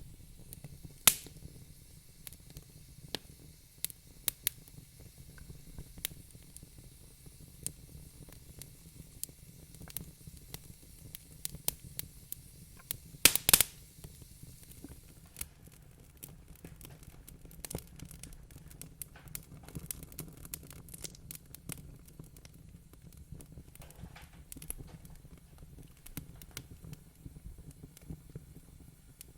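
Wood fire crackling in a fireplace: irregular sharp pops and snaps over a low steady rumble, with a louder cluster of pops about halfway through.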